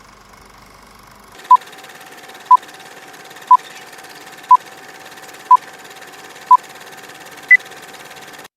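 Electronic time-signal beeps: six short beeps of the same pitch, one a second, then a single higher-pitched beep, over a steady hiss with a faint constant tone. The sound cuts off abruptly about a second after the last beep.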